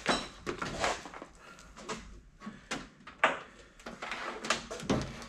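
Wiring harness being handled and laid out in a car: irregular rustles and light clicks, with a sharper knock about three seconds in.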